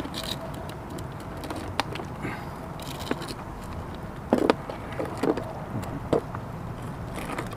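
Scattered clicks and knocks over a steady low rumble as a live, struggling mud crab is handled, with no string to tie its claws. The loudest knock comes about halfway through.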